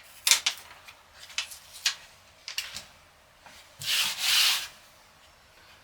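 Packaging being pulled off and handled: several short scratchy rubs, then a louder rub about a second long around four seconds in.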